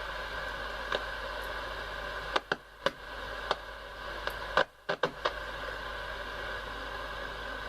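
Perdio Continental PR73 transistor radio's loudspeaker giving a steady hiss instead of a station, broken by sharp crackles and twice cutting out briefly around the middle. The noise comes from a faulty transistor in the set, with poorly soldered joints also suspected.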